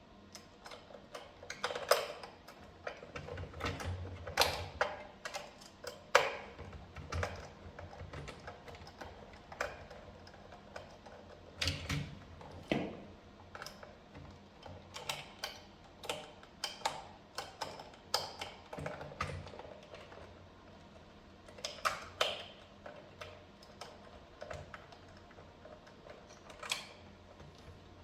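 Irregular clicks, taps and knocks of hard parts being handled, some sharp and loud, with short quiet gaps between.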